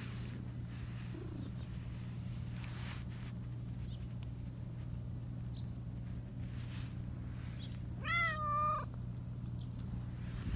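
Black Persian cat giving one high-pitched meow about a second long, rising and then falling, near the end, over a steady low hum.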